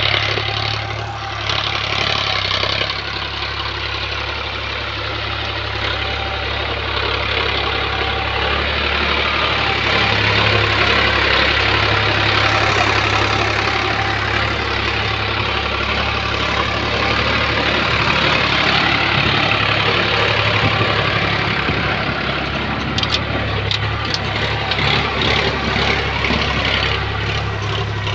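Diesel tractor engine running steadily under load while pulling a tine cultivator through dry soil, with a run of short sharp clicks in the last few seconds.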